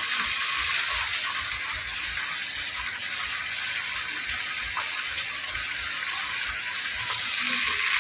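Pekasam fish frying in oil in a wok: a steady sizzling hiss that grows a little louder near the end.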